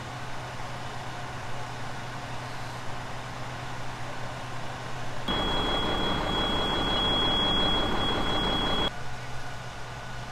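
Idling fire trucks: a steady low engine hum throughout. For a few seconds in the middle it is much louder, right beside a rescue truck, with a thin steady high-pitched whine over it, and it cuts off suddenly near the end.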